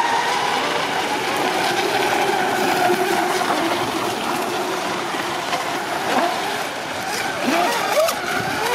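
Several radio-controlled racing catamaran boats running at speed across water, their motors' pitch rising and falling as they pass, over a hiss of spray.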